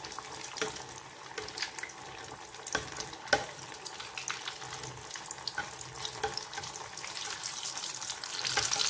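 Hot oil sizzling and crackling around a stuffed potato ball deep-frying in a small stainless saucepan, with a few sharp clicks of a metal spatula against the pan as the ball is turned. The sizzle grows louder near the end.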